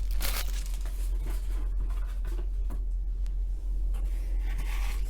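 Faint scratchy rustling and scraping of trading-card packaging being handled, a little brighter just after the start and again near the end, over a steady low electrical hum.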